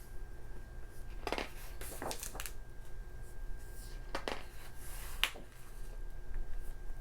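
Pages of a glossy magazine being turned and handled: several short paper rustles and swishes.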